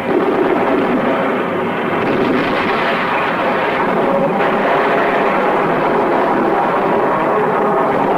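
Steady, dense roar of heavy engines from a war-film battle soundtrack, with no separate shots or blasts standing out.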